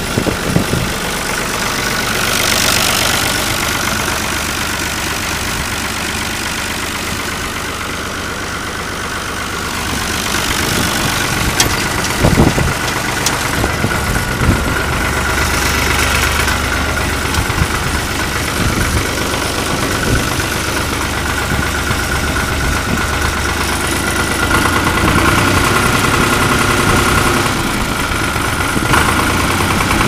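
1974 Long 350 diesel farm tractor engine running steadily at idle, heard at its lengthened vertical exhaust stack.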